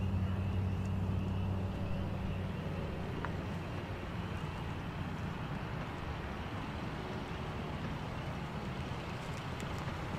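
Steady vehicle noise: a car's low engine hum, strongest at first and fading over the first couple of seconds, over an even rush of road and outdoor noise.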